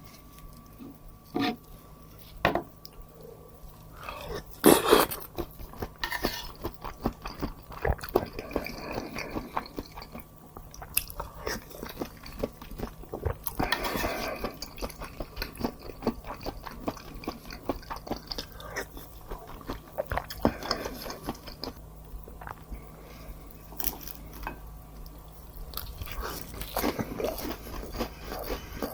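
Close-miked eating sounds: a person biting and chewing food, with crisp crunches and wet mouth clicks, and a few sharper knocks now and then.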